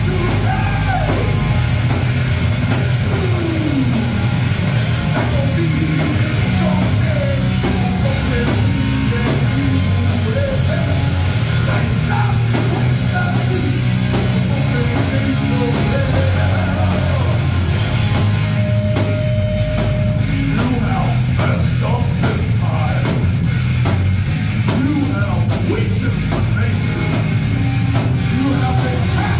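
Hard rock/heavy metal band playing live: distorted electric guitars and a drum kit, with a lead line sliding up and down in pitch over a heavy, steady low end.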